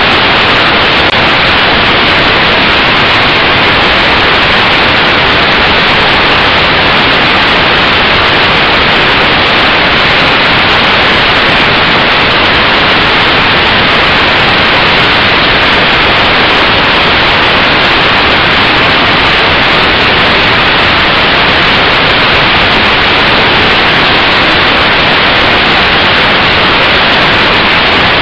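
Loud, steady static-like hiss recorded by the lighter spy camera's built-in microphone while it rides on a flying toy RC helicopter.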